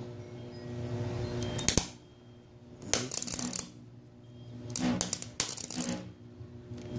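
Flux-cored wire welder spot-welding aluminum with ER5356 flux-cored wire at 80 amps: about four short bursts of arc crackle and spatter, a second or so apart, over a steady hum.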